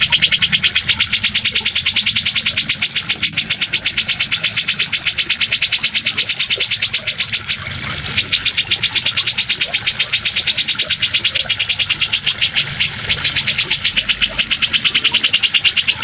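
Cucak jenggot (brown-cheeked bulbul) song-training recording: a loud, fast pulsed chattering trill of many strokes a second, continuing with only a brief break about halfway through.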